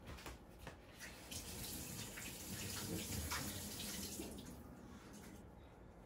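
Water running into a sink, coming on about a second in, at full flow around the middle and stopping a little after five seconds in.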